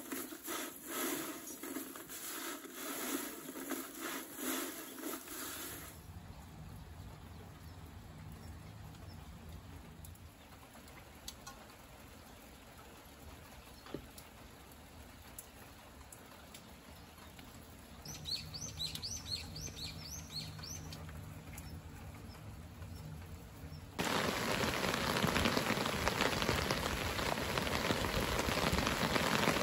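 Dried spring greens crackling as they are crushed by hand in a pan, then light rain with a bird chirping a quick run of high notes. Near the end the rain gets suddenly much louder and steady.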